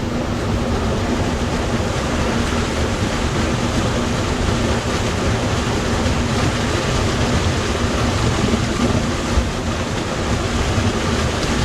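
Waterfall falling, a loud steady rush of water with a low rumble underneath.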